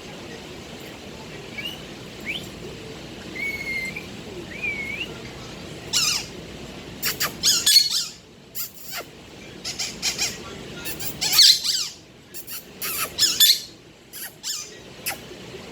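Budgerigar chirping and warbling: a few short rising whistles, then from about six seconds in, loud rapid bursts of scratchy chirps and squawks with short pauses between them.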